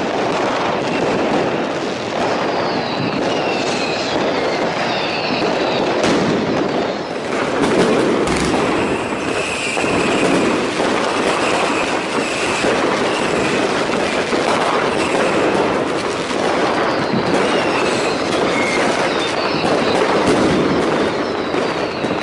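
A dense, continuous barrage of New Year's fireworks: crackling bangs and firecrackers running together, with short whistling rockets gliding in pitch again and again over them.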